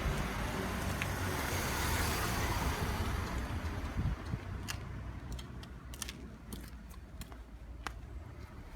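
A car going by on the street, its tyre and engine noise fading away over the first few seconds, followed by a quieter stretch with scattered light clicks.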